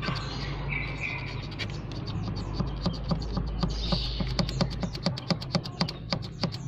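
Hand priming pump on a Toyota Fortuner 2KD diesel's fuel filter housing being pumped by hand to push diesel through and bleed air from the line: a series of sharp clicks, sparse at first, then quicker and regular in the second half, over a steady low hum.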